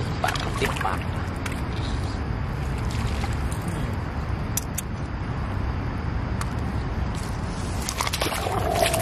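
Steady low wind rumble on the microphone, with scattered faint clicks.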